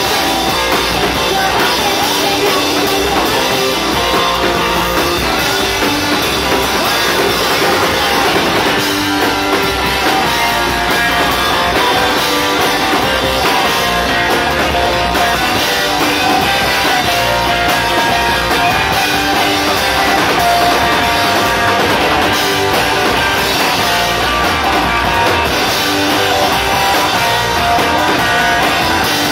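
Live rock band playing loud and without a break: two electric guitars over a drum kit.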